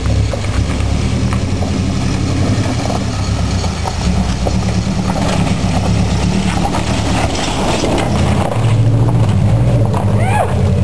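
Subaru wagon's flat-four engine running at low revs under load as it crawls over a rock ledge, with mechanical rattling and clanking from the vehicle.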